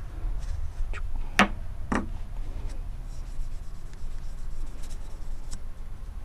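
Acetone-soaked cotton ball rubbing over plastic shotgun hulls with a soft scratchy sound and small ticks, as the lettering is wiped off. About a second and a half in come two sharp knocks half a second apart from the hulls being handled on the wooden workbench.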